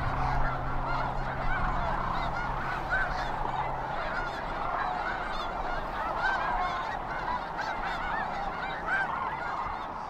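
A large flock of sandhill cranes calling together: a dense chorus of many overlapping calls.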